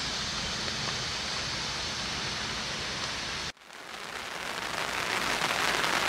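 A steady hiss cuts off abruptly about three and a half seconds in. Then rain pattering on a surface fades in and grows steadily louder.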